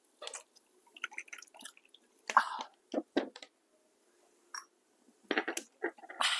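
Scattered small eating and drinking sounds: a drink poured from a small bottle into a glass, light clinks of glass, spoon and dishes, and chewing.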